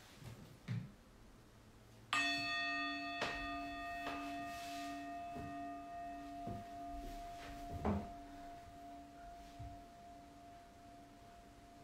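A meditation bell, singing-bowl type, struck once about two seconds in. It rings out with a slow, pulsing wobble in its low tone and fades gradually, marking the start of a timed two-minute hold. A few soft knocks sound on the mat.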